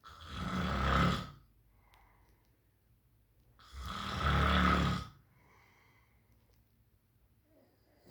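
Heavy snoring: two long, loud, rasping snores about three and a half seconds apart, with soft breaths out between them and a third snore starting near the end.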